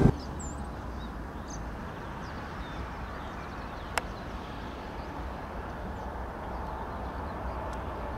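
Quiet outdoor airfield background with a low steady rumble and a few faint bird chirps, broken by one sharp click about four seconds in. From about six seconds in, the faint steady whine of a Boeing 787-9's jet engines on its takeoff roll grows slightly.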